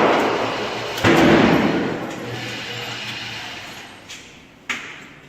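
Handgun shots on a firing range. One loud report about a second in dies away slowly in a long ringing tail. Two fainter sharp cracks follow near the end.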